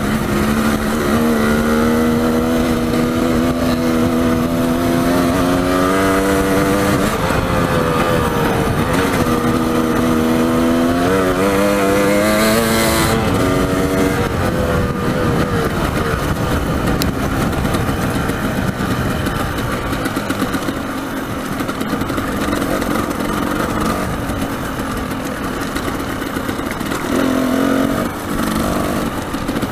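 Dirt bike engine running under way on a rough trail, its pitch climbing over the first several seconds, dropping, then climbing again before it eases off about halfway through. Under and after it an even rushing noise, wind over the microphone and the ride.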